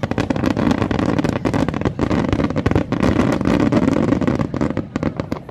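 Fireworks barrage: a dense run of rapid bangs and crackles over a continuous rumble, easing off at the end.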